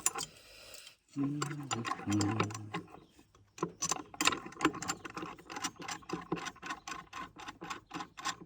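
Ratchet clicking while the sawmill feed-works wire rope is being rigged: sharp metallic clicks, several a second and unevenly spaced, starting about three and a half seconds in, after a short low hum.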